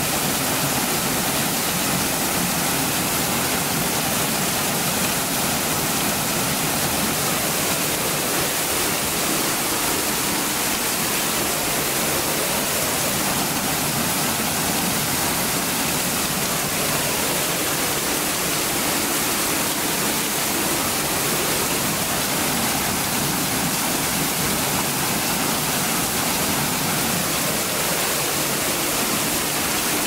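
Waterfall pouring through a natural hole in the rock, heard from close beneath the falling water: a steady, unbroken rush of splashing water.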